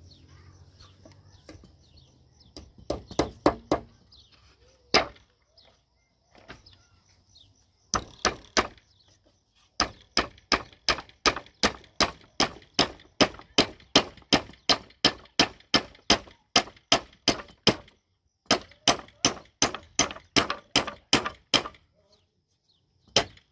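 Hammer driving nails into wooden pallet boards: sharp ringing strikes, a few at first, then long runs of about three blows a second broken by short pauses.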